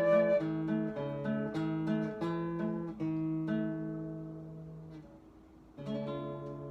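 Acoustic guitar picking an arpeggio that slows and fades, then a final chord struck about six seconds in and left ringing as the piece closes. A held flute note ends just after the start.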